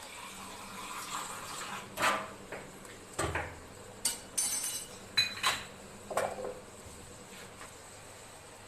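Metal kitchen utensils clinking and knocking against a cooking pot: a few separate sharp knocks and clinks over several seconds, with a short scrape or splash about halfway through.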